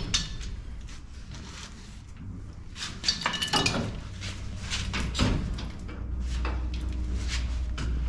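Metal clanks, knocks and scraping from a dirt late model's rear axle housing being worked out of the chassis and handled, with the sharpest knocks about three and five seconds in.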